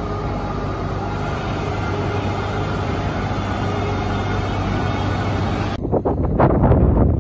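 Steady machinery noise of a factory workshop, a low hum under an even rushing haze. About six seconds in it cuts off suddenly, and gusts of wind buffet the microphone.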